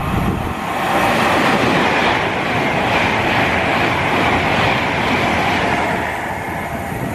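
Passenger train passing the platform at speed without stopping: a loud rush of wheels on rail and air. It swells about a second in and eases off near the end as the last coach clears.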